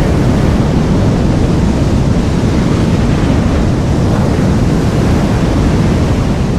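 Designed tsunami sound effect: a loud, steady wall of rushing-water noise with a heavy low rumble beneath it.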